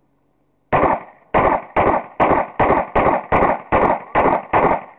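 A Beretta 96A1 .40 S&W semi-automatic pistol firing rapidly. About ten sharp shots in quick, even succession, roughly two and a half a second, starting under a second in.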